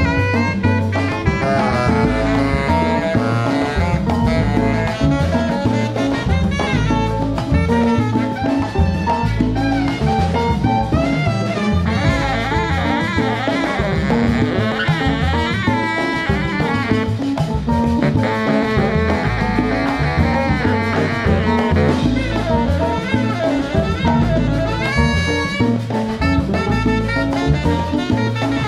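Latin jazz band playing: a horn section of saxophones and trombone over Latin percussion and drum kit.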